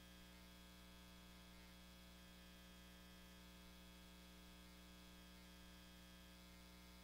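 Near silence: a faint, steady electrical hum on the sound feed.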